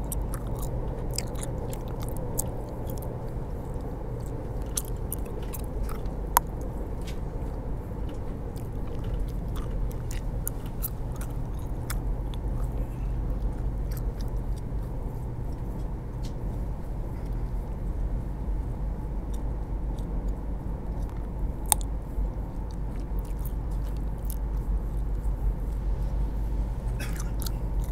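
Bubble gum being chewed right at a headset microphone, with scattered small wet clicks and two sharper snaps, over the steady low rumble of a moving train.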